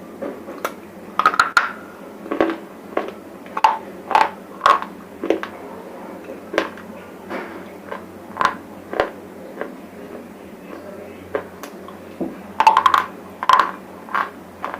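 Close-up crunching and biting of dry, brittle bar chips in the mouth: irregular sharp crunches, loudest in clusters about a second in and near the end.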